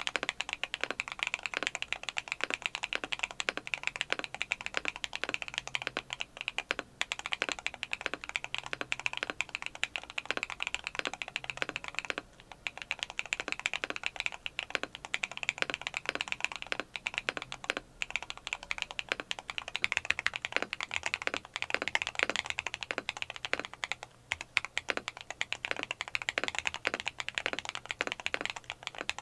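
Fast continuous typing on a mechanical keyboard fitted with KTT Teresa linear switches: loud, clacky keystrokes from the long-pole POM stems bottoming out, with brief pauses now and then.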